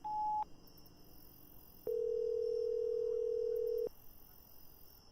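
Electronic telephone-style tones: a brief high beep, then a lower steady tone held for about two seconds.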